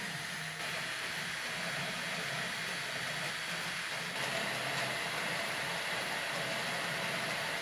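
3D printer with an E3D hotend printing PLA: steady fan hiss with the hum of the stepper motors moving the print head, shifting slightly about four seconds in.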